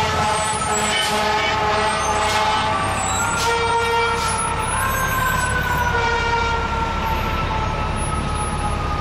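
Fire engine siren wailing, its pitch sliding slowly down through the second half, over a steady low rumble of truck engine and traffic. A brief low horn note sounds about three and a half seconds in.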